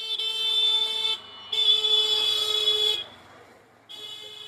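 A vehicle horn honking three times: two long blasts of over a second each and a shorter, quieter third, each a steady buzzing tone. A faint low hum runs underneath.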